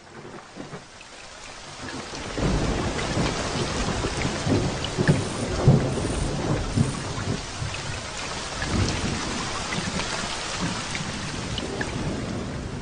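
Steady heavy rain falling, with irregular low rumbles underneath. It builds up over the first couple of seconds.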